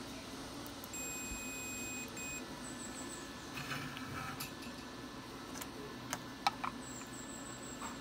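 Digital multimeter's continuity buzzer beeping: one steady high beep of about a second, then a short second beep, signalling that the test probes are bridging a closed circuit. A few sharp clicks follow around six seconds in, with bursts of fast high insect chirping in the background.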